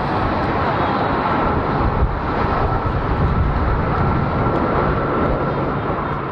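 Six Blue Angels F/A-18 Hornet jets passing overhead in formation: steady, loud jet engine noise with a thin steady whine above it.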